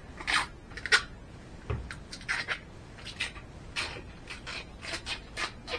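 Irregular rubbing, rustling and scraping as an acrylic sheet with its protective film is handled.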